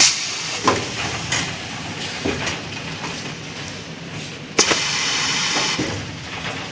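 Semi-automatic toilet paper roll packing and sealing machine running: a steady mechanical noise with several sharp knocks in the first couple of seconds, then a louder knock about two-thirds through followed by a hiss lasting over a second.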